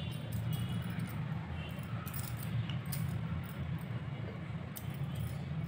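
Faint light clinks and jingles of glass bangles on the wrists as hands fold dough, over a steady low hum.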